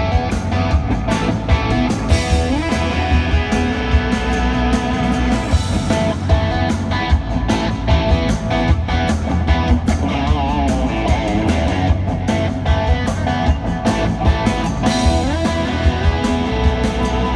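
Rock band playing live through a hall PA at sound check, with the electric guitar loud over the rest of the band.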